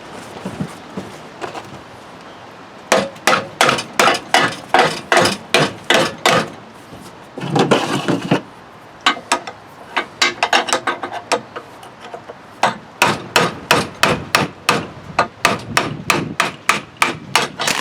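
Repeated hammer blows, about two a second, with a short scraping sound about halfway and quicker blows in the last few seconds. The hammering is knocking a rust-stuck wheel loose on a lawnmower.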